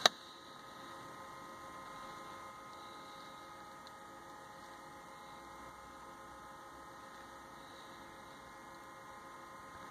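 Faint, steady electrical hum with several thin, steady high-pitched tones over it.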